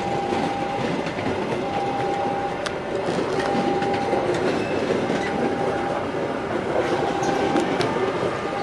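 Passenger train of stainless-steel coaches passing close over a level crossing, its wheels running and clattering on the rails. Over it, the crossing's warning alarm sounds a repeating single tone, about one every second and a half.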